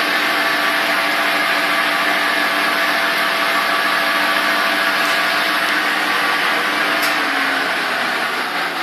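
Ikegai metal lathe running: a steady motor and gearbox hum with a whine over a broad mechanical noise, its pitch dropping a little near the end as it slows.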